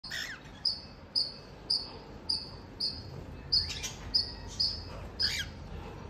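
Cockatiel giving a string of short, high chirps about twice a second, with a few harsher calls mixed in.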